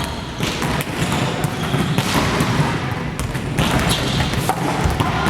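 Several basketballs bouncing on a gym floor, with many overlapping, irregular thuds from a team drill.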